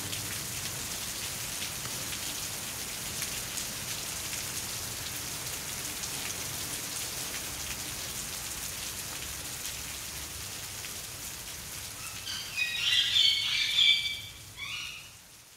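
Steady patter of rain, with a brief burst of high chirping near the end.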